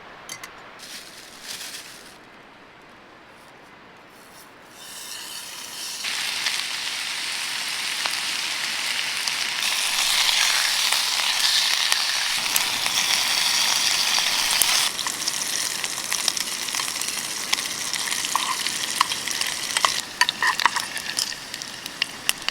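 Food sizzling in a hot pan. The hiss starts about five seconds in and swells, then settles into a lighter sizzle with scattered sharp pops and crackles.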